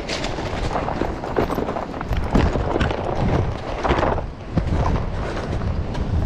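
Footsteps crunching and scuffing over loose beach stones and rock, an uneven run of steps.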